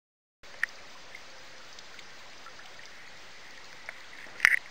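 Small garden waterfall: water trickling and splashing off a cascade of terracotta roof tiles into a pond. It starts about half a second in as a steady sound, with a few sharp drips and a louder splash near the end.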